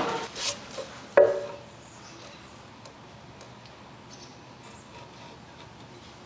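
Hammer strikes in a woodworking shop: one knock about half a second in, then a sharper, louder strike with a brief ringing tail, followed by faint small ticks and rubbing.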